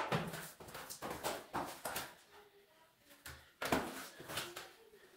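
Long-handled broom scrubbing a wet tiled floor in quick repeated strokes, about three a second, easing off midway and starting again near the end.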